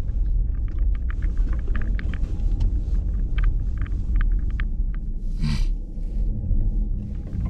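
A car moving over a snowy road, heard as a steady low road rumble, with scattered light clicks and a brief hiss about five and a half seconds in.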